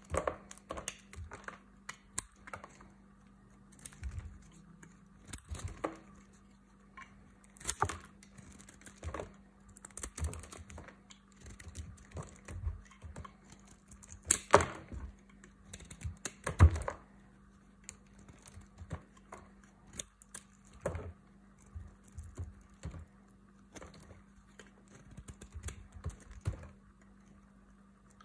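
A flat blade shaving curls and chips off a hard, dry bar of soap: irregular crisp crunches and cracks, with two louder snaps a little past halfway.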